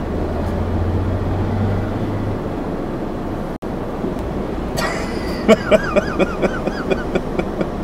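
Road traffic and vehicle engine noise, with a low steady engine hum for the first couple of seconds. Later a wavering high tone and a quick run of short sharp sounds come in.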